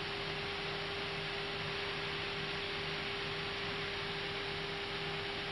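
Steady hiss with a constant hum and a faint low note pulsing on and off: background noise in the Airbus A320's cockpit audio between radio calls.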